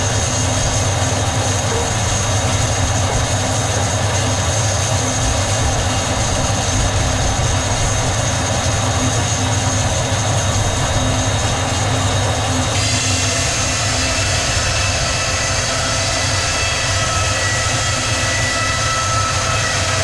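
Sawmill machinery running steadily, a loud mix of motor hum and whining tones. About 13 s in, the pitch pattern shifts abruptly to a different set of tones.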